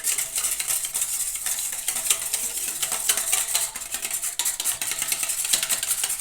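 An egg being beaten by hand in a bowl: a utensil knocks rapidly and steadily against the bowl in a continuous run of quick clicks.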